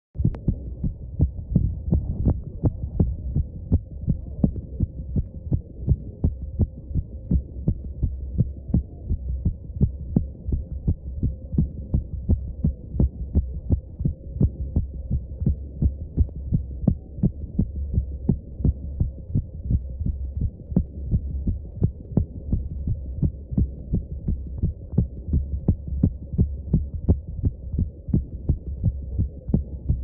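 An adult woman's heartbeat heard through a stethoscope: the lub-dub heart sounds thump in a steady, even rhythm over a continuous low hum.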